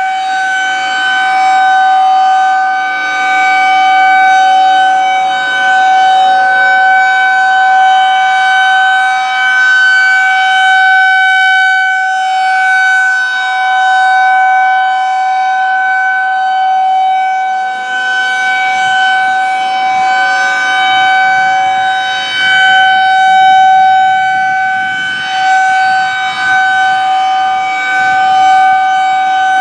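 Federal Signal 2001-130 single-tone rotating electromechanical outdoor warning siren sounding a steady alert tone. The pitch holds level while the loudness swells and dips as the horn turns.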